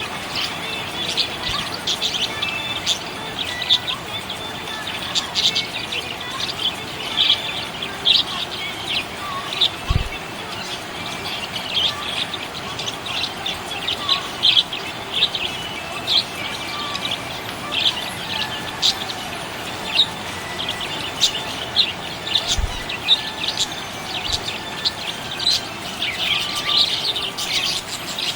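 Budgerigar chirping: a steady stream of short, high chirps and twitters, one after another with no pauses.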